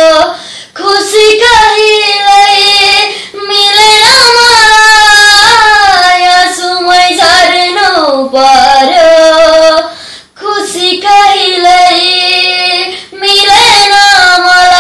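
A boy singing alone, holding long drawn-out vowel notes that slide up and down, in phrases broken by short pauses.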